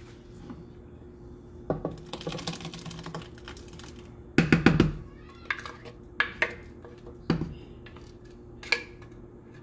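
Wooden spoon tapping and scraping against a glass blender jar and a square pan while thick purée is emptied out: a run of quick clicks, a louder clatter about halfway through, then single sharp taps, over a faint steady hum.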